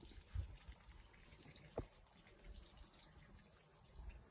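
Steady high-pitched insect shrilling in the background, with a soft low thump about half a second in and a short click near two seconds.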